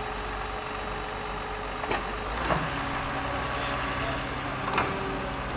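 ED78 electric multiple unit approaching the station, a steady low hum with a few sharp clicks, about two, two and a half and five seconds in.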